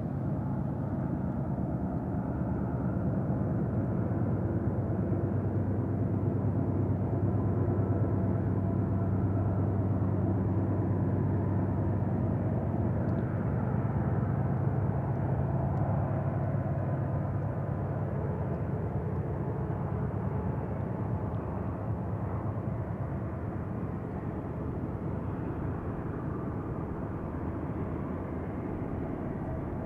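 Distant BNSF diesel locomotives hauling a heavy intermodal train upgrade, a steady low engine drone. It swells over the first half and eases off after about twenty seconds.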